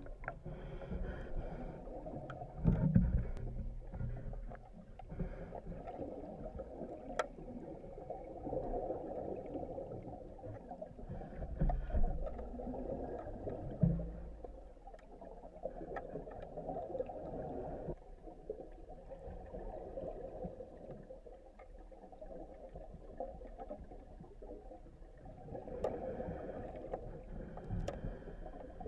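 Muffled underwater noise in a swimming pool, a steady low wash with a few dull knocks, most clearly about 3, 12 and 14 seconds in, as a diver works on the pool drain.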